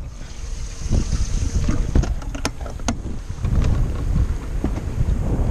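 Wind buffeting the microphone aboard a bass fishing boat on open water, with a few light knocks.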